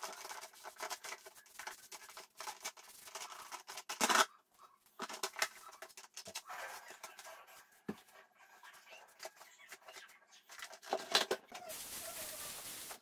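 A microfiber cloth rubbing and scrubbing on a plastic trash can and its lid, giving scratchy rustling and small clicks. There is a louder short rustle about four seconds in, and a steady hiss for about a second near the end.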